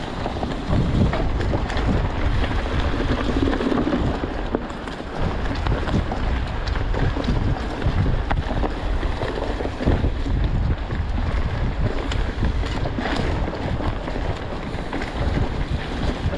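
Mountain bike riding over a dirt forest singletrack: wind buffeting the microphone over the rumble of the tyres, with irregular knocks and rattles as the bike goes over bumps.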